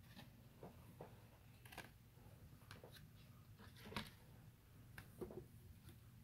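Near silence with a few faint, scattered clicks and rustles from a stack of trading cards being handled and set down.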